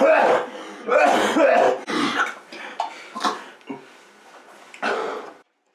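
A man coughing and spluttering in about five harsh bursts, strongest in the first two seconds and weaker after. It is his reaction to a mouthful of food he finds disgusting.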